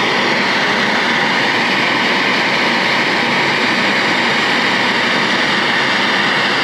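Kitchen gas blowtorch burning with a steady, loud hissing flame, melting the sugar coating on homemade strawberry candies.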